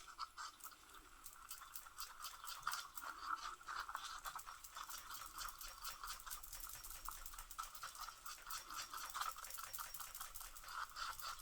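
Coloured resin being mixed in a small cup, adding pigment to make it opaque: a faint, steady scraping with rapid fine clicks.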